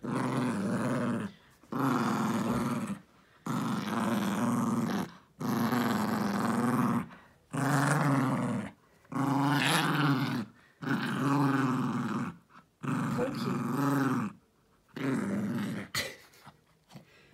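Yorkshire terrier growling in play while tugging at a stuffed toy elephant: a run of about nine low growls, each a second or two long, with short pauses between.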